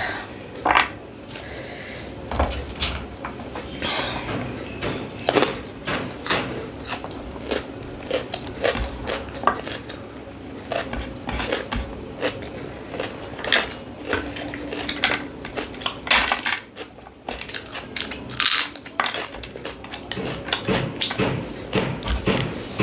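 Close-up eating sounds: many short clinks and knocks of cutlery and a plate, mixed with crunching and chewing.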